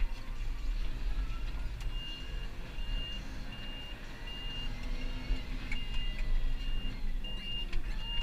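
Tractor engine running steadily under way, heard from inside the cab. From about two seconds in, a high beep repeats about every two-thirds of a second over the engine.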